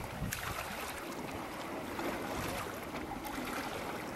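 Steady water and wind noise, with a few faint splashes.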